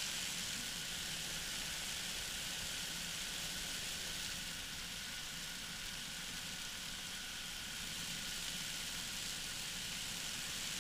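Engine and propeller of a flexwing weight-shift microlight trike droning steadily in cruising flight.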